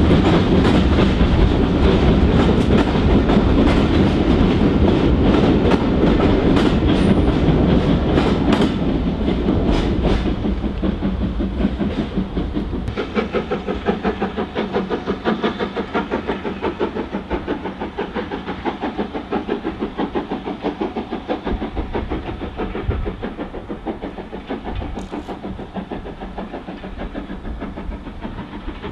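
Steam train departing: the coaches' wheels clatter over the rail joints as they pass close by, then the exhaust beats of SR U class 2-6-0 no. 31806 settle into a regular chuffing that grows steadily fainter as the train draws away.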